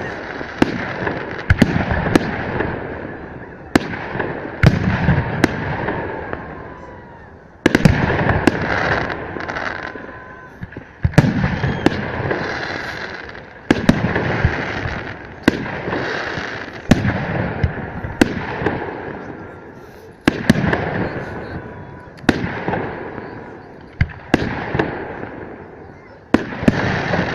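Fireworks salute: aerial shells bursting one after another, each sharp bang followed by a long echoing rumble and crackle, a new burst every one to two seconds.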